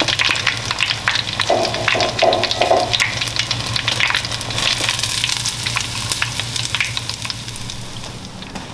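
Battered chicken pieces frying in hot oil in a pot: steady sizzling with dense crackling, easing toward the end.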